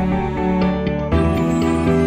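Background music: a soft, slow instrumental with sustained chords, moving to a new chord about a second in.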